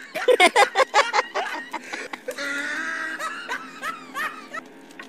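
A person laughing in quick bursts of short chuckles, pausing, then laughing again before it fades out.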